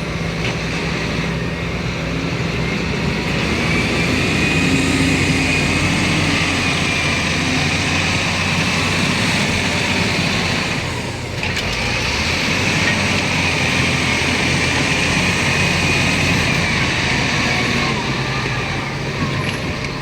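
Heavy diesel construction machinery running steadily under work, with a high whine over the engine and a brief dip in level about eleven seconds in.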